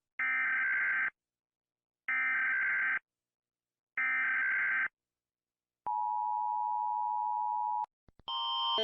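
Emergency Alert System tones: three identical bursts of shrill electronic data tones, each just under a second long and about two seconds apart, the coded alert header, followed by a two-second steady dual-tone attention signal. A different electronic alarm starts near the end, growing louder.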